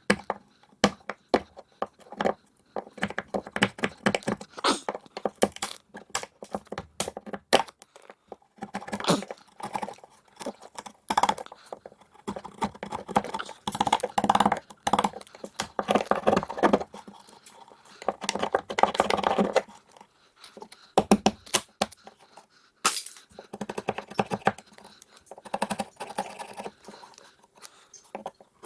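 Irregular clicks, knocks and scrapes of hands-on carpentry work, in busier clattering stretches with short gaps between.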